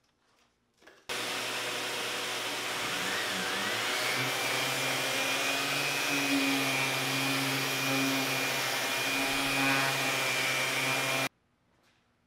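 Shop vacuum and random orbital sander running together while a board is sanded. The noise starts and stops abruptly, and a whine rises about two seconds after the start, then holds steady.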